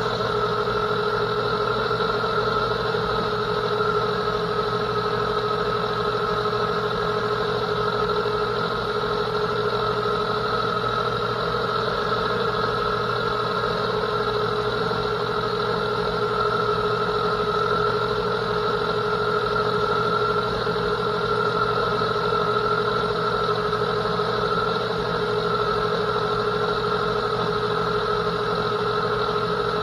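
Metal lathe running steadily while a TNMG 331 triangular carbide insert takes a turning pass on a metal bar: an even machine hum with steady higher tones that do not change.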